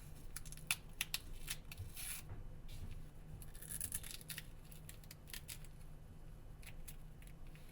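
Adhesive heat spreader being peeled by hand off a Lumia 1520's battery: faint crackling and tearing of the sticky film, with scattered small clicks and a couple of longer peeling rips about two and four seconds in.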